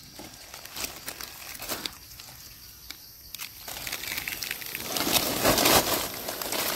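Dry fallen leaves crackling and rustling as hands dig through the leaf litter to pull up wild mushrooms. There are scattered light crackles at first, which grow louder and denser about four seconds in.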